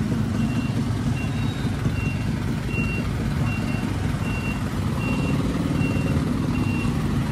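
Warning beeper on a sound-system truck, one steady tone repeating about once every three-quarters of a second, over the low rumble of the truck's engine as it rolls slowly.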